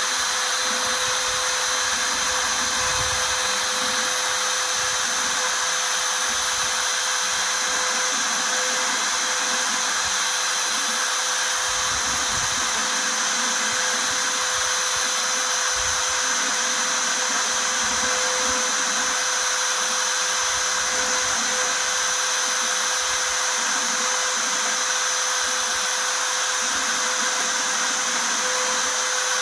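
CNC router spindle running steadily at speed with a constant high whine while a 1/4-inch V-bit engraves lettering into aluminium sheet.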